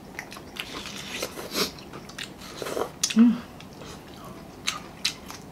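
Close-miked eating: wet chewing, lip smacks and bites of watermelon and fried chicken, in a string of short irregular clicks. A brief hummed 'mm' comes about three seconds in.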